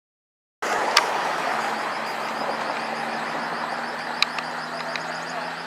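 A steady vehicle running noise with a low engine hum, starting abruptly a little over half a second in and slowly fading, with a few short high ticks or chirps over it.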